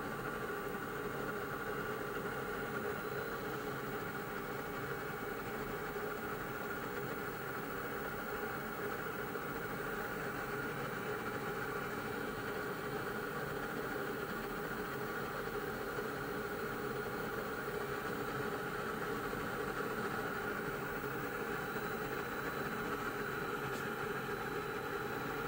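Navien NR-240A tankless water heater running: a steady mechanical hum with several held tones over an even rush.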